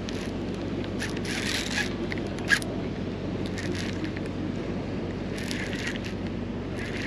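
Baitcasting fishing reel being cranked in short bursts as a lure is retrieved, a scratchy whirring that comes and goes several times over steady low outdoor background noise, with one sharp click about two and a half seconds in.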